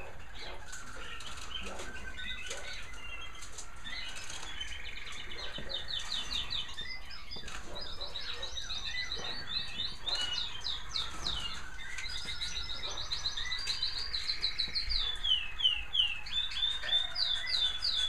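Several American Singer canaries singing together in fast trills and rolling runs of repeated notes, growing louder in the second half with runs of falling notes near the end. Scattered soft clicks sound beneath the song.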